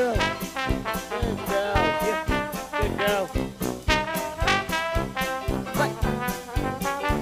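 Background music with a steady beat and a pitched melody line.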